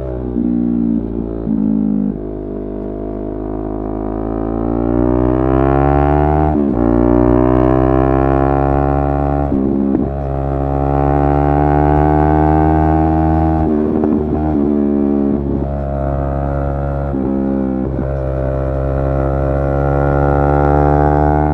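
Yamaha R3's parallel-twin engine under acceleration. The pitch climbs steadily, then drops at each upshift. There are long pulls early on and a cluster of quick throttle breaks and shifts in the second half.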